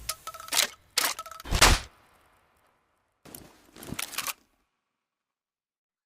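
Sawed-off shotgun's action being worked between shots: a quick run of sharp metallic clacks with a faint ring in the first two seconds, then a few more clicks about four seconds in.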